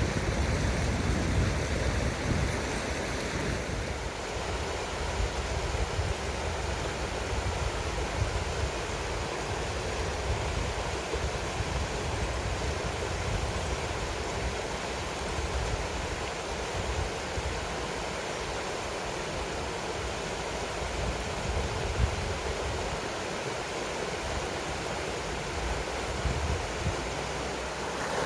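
Mountain stream rushing steadily, with a low, uneven rumble underneath.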